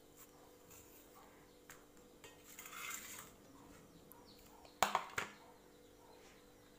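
Soft rustling as a ripe plantain is peeled and handled. About five seconds in come two sharp clatters, half a second apart, as kitchen utensils are set down.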